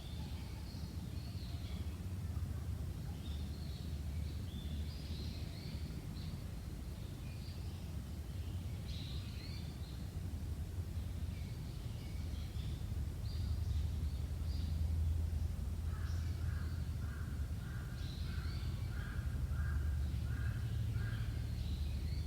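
Wild birds chirping and calling in scattered high notes. Near the end one bird gives a run of about ten short calls, roughly two a second. A steady low rumble runs underneath.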